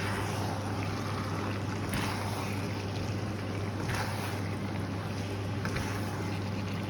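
Steady cooking noise from a pan of shrimp pasta on a lit stove, over a constant low hum, with a few faint knocks of a utensil in the pan.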